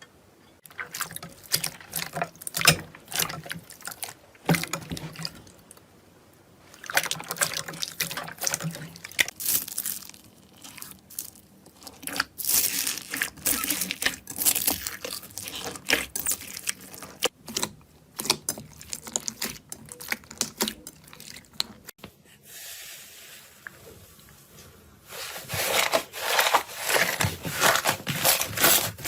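Slime squeezed and pressed by hand: dense runs of wet, sticky clicking and popping, stopping briefly about five seconds in and going to a faint hiss for a few seconds near the end before the crackling starts again.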